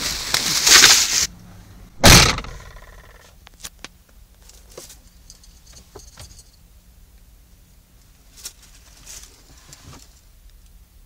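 Rustling handling noise against the microphone, then a single loud thump about two seconds in as a car door shuts. After that, a quiet car interior with a low steady hum and a few small clicks.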